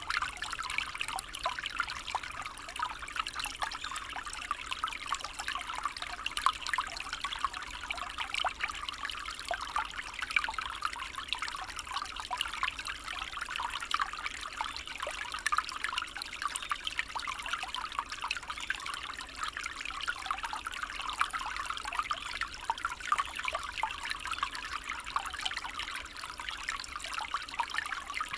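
Small stream running over stones: a steady trickling and babbling of shallow water, its sound mostly in the middle-high range without a deep rush.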